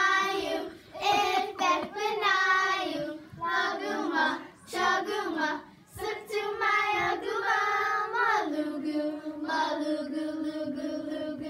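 Young girls singing a traditional Alaska Native song together in short phrases, ending on a long held lower note.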